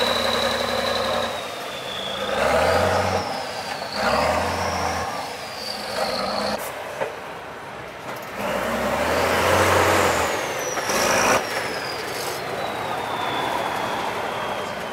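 Diesel engine of a 6x6 trial truck revving in repeated surges as it drives through mud, with a high whistle that rises and falls with the revs. A short loud burst of noise about eleven seconds in.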